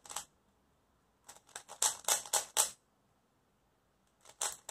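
Plastic cylinder-shaped 3x3 twisty puzzle being turned by hand, its layers clicking in quick runs: one about a second in that lasts over a second, and another starting near the end.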